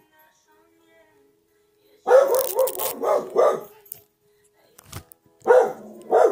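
A small dog barking in quick runs of high, pitch-bending barks, one run about two seconds in and another near the end. A single knock sounds about five seconds in.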